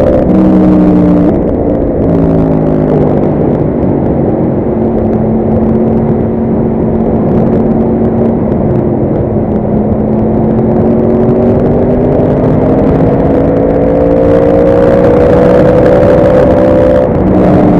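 Yamaha R1 sportbike's inline-four engine running under load. Its pitch steps at gear changes a couple of times in the first few seconds, holds steady, then climbs slowly and drops at another gear change near the end, over heavy wind and road noise.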